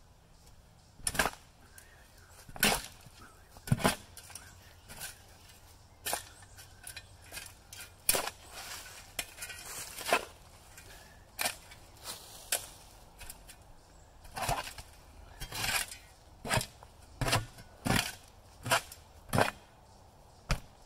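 A shovel working dirt: uneven scrapes and thuds, roughly one a second, with a longer gritty stretch about eight seconds in.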